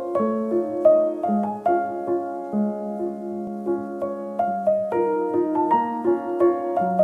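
Background piano music: a slow melody of single notes over long held low notes.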